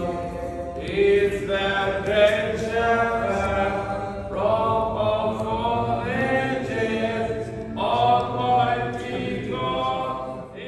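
A group of men chanting unaccompanied, in sung phrases a few seconds long; the singing fades out at the end.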